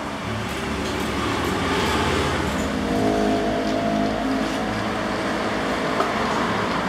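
A motor vehicle engine running steadily close by. Its drone grows louder about two seconds in and then holds. A single light click comes near the end.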